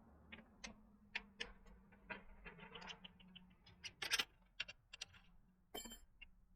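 Scattered light clicks, taps and knocks of bike parts and tools being handled, with a quick run of ticks in the middle and a louder knock about four seconds in.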